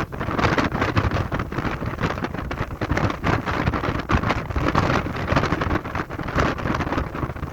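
Strong wind buffeting the microphone in uneven gusts, a loud rumbling noise that surges and drops every fraction of a second.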